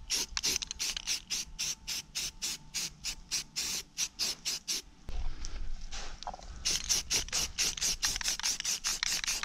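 Aerosol spray-paint can hissing in rapid short bursts, about three to four a second, as semi-gloss white paint is misted on. There is a brief pause a little past the middle, and the bursts come faster after it.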